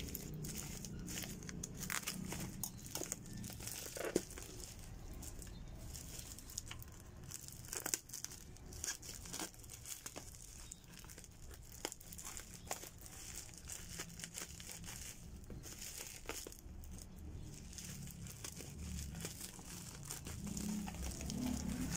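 Plastic bubble wrap crinkling and crackling as it is handled and cut open with scissors, in irregular short snips and rustles.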